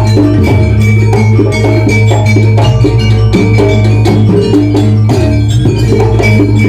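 Loud jaranan music from a live gamelan-style ensemble: struck metal mallet instruments and drums playing dense, even strokes over a steady low tone.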